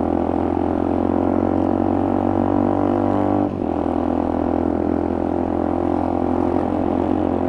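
Motorcycle engine running steadily under way, with a short dip in level about three and a half seconds in before it settles back to the same steady note.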